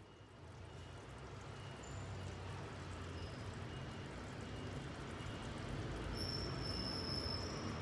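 Chicken and eggplant simmering in a pan on the stove: a steady hiss over a low hum that slowly grows louder. A thin high whistle joins near the end.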